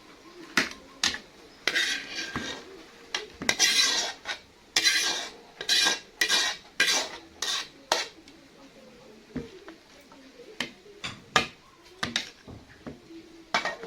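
A metal spoon scraping and clinking against a cooking pan and dishes as the finished chicken adobo is stirred and dished out. The scrapes and clinks come thick and fast for the first eight seconds or so, then thin out to scattered single clinks.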